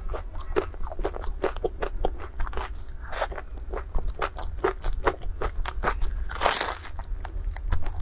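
Close-miked chewing and biting of a Chinese fried dough stick (youtiao): a quick, irregular run of small crisp crunching clicks, with two longer, louder crunches about three seconds and six and a half seconds in.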